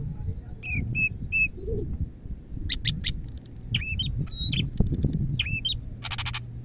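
Cucak ijo (green leafbird) singing. It gives three clear whistled notes, then a rapid run of varied high chirps and whistles, with a short harsh rasping note near the end.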